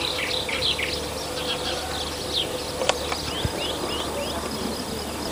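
Small birds chirping and twittering, many quick high calls that thin out after the first second or two, over a steady low hum. There is one sharp click about three seconds in.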